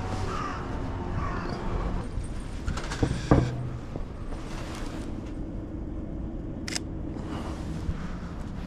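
Outdoor city street ambience with a steady low traffic hum. A few harsh bird calls sound in the first second or so, and a sharp click about three seconds in is the loudest moment.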